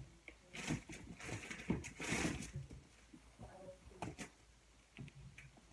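Rummaging through a clear plastic storage bin: rustling and knocking of squishy toys and plastic being moved about, with a couple of sharp clicks about four seconds in.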